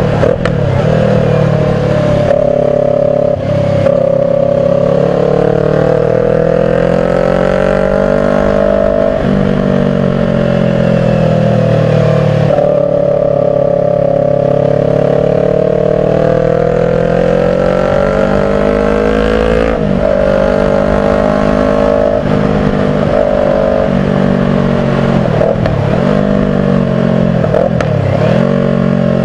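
Kawasaki Ninja 400 parallel-twin engine running steadily under way, its pitch rising and falling slowly with the throttle. Several brief sharp drops in revs come in the last ten seconds.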